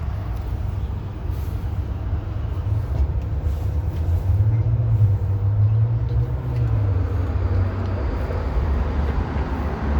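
Road traffic: a steady low engine rumble that swells about four seconds in and eases off a few seconds later as a vehicle passes close by.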